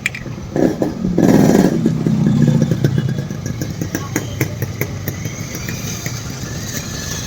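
Bajaj Discover 100cc single-cylinder four-stroke engine running. It is blipped louder about a second in, then settles to a steady idle with repeated sharp ticking knocks, a noise the mechanic puts down to a worn crankshaft bearing.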